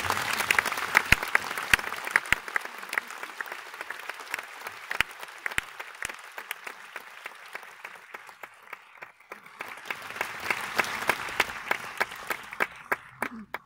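Audience applauding: dense clapping that thins out midway, swells again about ten seconds in, then cuts off abruptly near the end.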